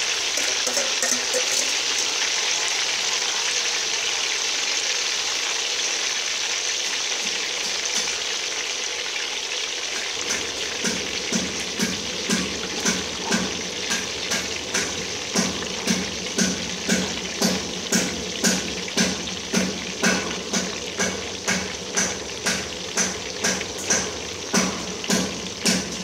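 Sweet potato sticks deep-frying in a wok of hot oil, a steady sizzle and bubbling hiss. About ten seconds in, a regular pulse of roughly one and a half beats a second joins the sizzle.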